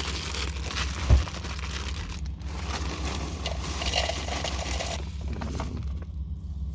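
Breakfast being made by hand: dry cereal and seeds poured and shaken into a bowl, with packaging crinkling and scraping. A single thump comes about a second in, all over a steady low hum.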